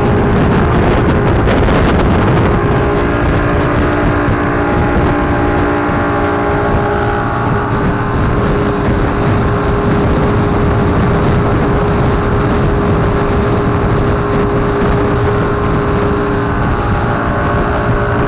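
A 150 hp motorboat engine running steadily at cruising speed, with water rushing along the hull and wind buffeting the microphone.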